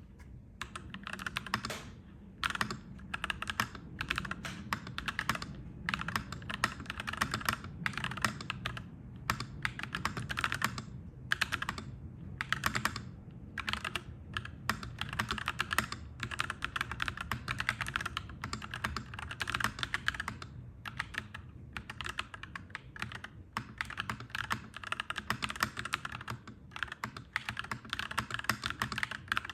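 Clacky mechanical keyboard being typed on in continuous runs of keystrokes, broken by short pauses every few seconds, over a steady low background rumble.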